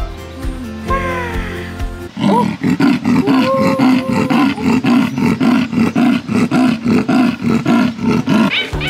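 Leopard giving a loud, rough, pulsing roar that starts about two seconds in and runs almost to the end, over background music.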